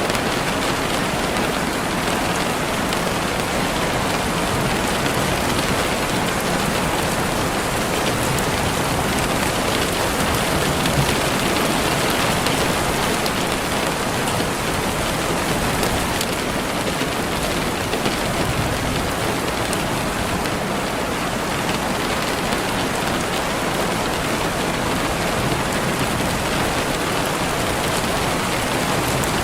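Steady rain falling and pattering on surfaces, an even hiss of many drops with no break.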